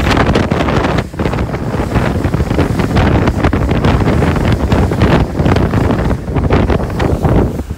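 Strong wind buffeting the microphone over water rushing and spraying past the hull of the IMOCA 60 Seaexplorer, foiling at about 17 knots. The noise is loud and gusty, with a brief drop about a second in.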